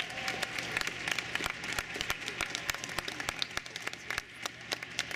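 Audience applauding: a scattering of separate hand claps over a light patter, with the last note of the music dying away just at the start.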